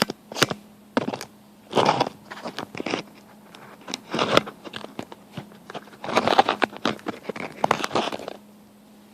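Small steel latch parts handled on a workbench: a series of clicks and clinks mixed with short scraping rustles, over a faint steady hum.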